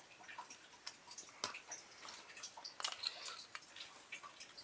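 Faint, scattered small clicks and ticks of plastic and metal Beyblade parts being handled as the face bolt is screwed back on.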